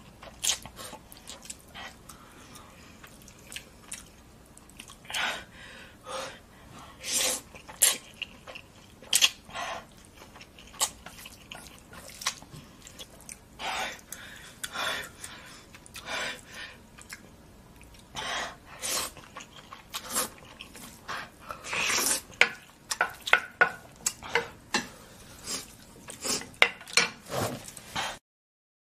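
Close-miked eating of spicy instant noodles: irregular wet slurps, chewing and mouth clicks, loudest and most frequent in the last third. The sound cuts out abruptly just before the end.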